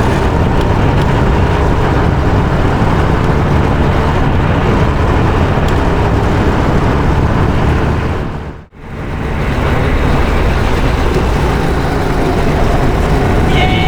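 Loud, steady rush of engine and wind noise from a moving vehicle. It drops out for a moment a little past halfway, then resumes.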